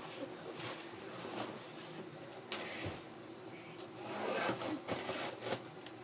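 Cardboard shipping box and its packing being handled and opened: irregular rustling and scraping with scattered clicks and knocks, busiest in the second half.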